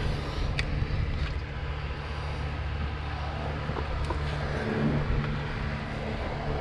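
Steady low mechanical hum from a running machine, with a brief click about half a second in.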